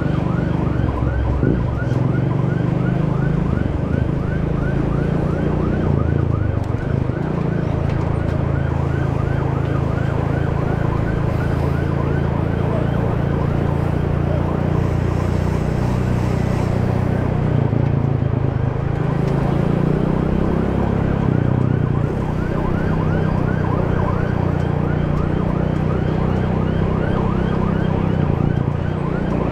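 Off-road trail motorcycle engine running under load without a break, its revs rising and falling.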